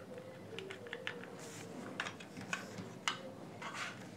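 Light clicks and short scrapes of a plastic laptop charger case being handled and pulled apart by hand, its petrol-softened seam coming loose.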